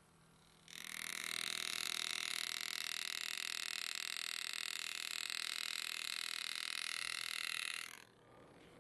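Power engraving handpiece buzzing steadily as it cuts. It starts about a second in and stops shortly before the end.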